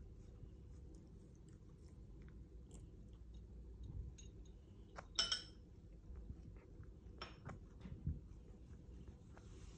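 Domestic tabby cat grooming herself, with faint licking and nibbling at her fur. A few sharper clicks stand out, the loudest about five seconds in.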